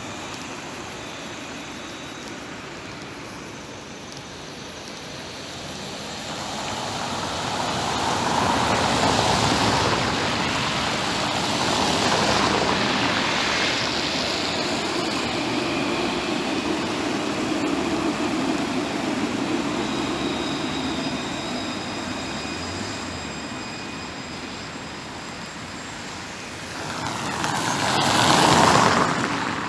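Alstom Citadis electric tram approaching and passing close by on its street-level track, with the hum of its electric drive and the rolling of its wheels on the rails. The sound swells from about six seconds in and fades after about twenty seconds. A shorter, louder swell near the end comes from another passing vehicle.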